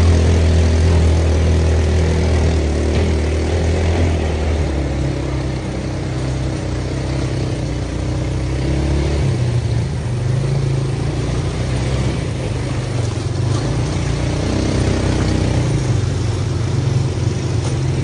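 ATV (quad bike) engines running steadily while riding a dirt trail. The engine note changes abruptly about halfway through.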